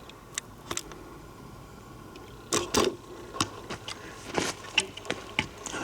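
Irregular clicks and short crunches from walking with a handheld camera: footfalls on a dirt trail and handling of the camera rig, with the loudest pair of crunches a little before the middle and another about three quarters through.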